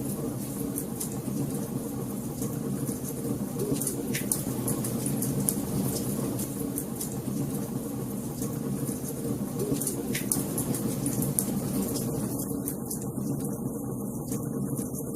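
Wood fire burning in a fireplace: a steady low rush of flames with frequent small crackles and a couple of louder pops, about four and ten seconds in.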